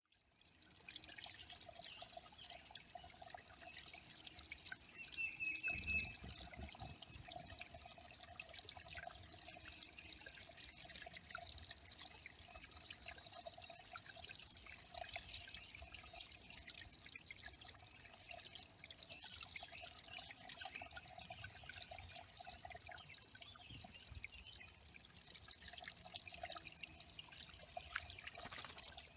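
Faint water trickling and dripping into a small bird pond, steady throughout. About five seconds in there is a brief high chirp from a bird, and just after it a short low thump.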